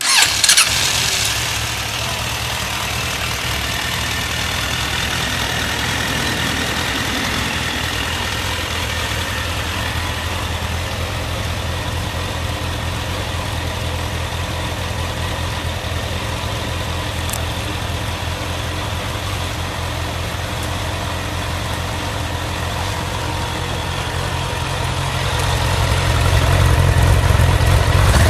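Suzuki GSF1200 Bandit's oil-cooled inline-four starting on the electric starter and catching at once, then idling steadily. It grows louder near the end. It runs smoothly with no abnormal noises.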